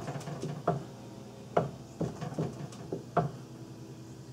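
Several light, separate knocks and clicks of a cast aluminium water pump housing being nudged about on a drill press table while the drill bit is lined up over the hole. The sharpest knock comes about one and a half seconds in.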